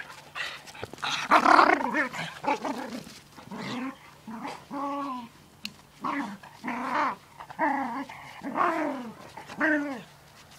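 Dogs play-fighting, growling and giving short pitched yelps one after another, loudest about a second and a half in.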